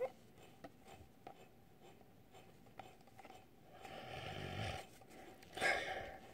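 Faint clicks and slides of a stack of trading cards being flipped through by hand, then a soft breath out and a sharper, louder breath near the end.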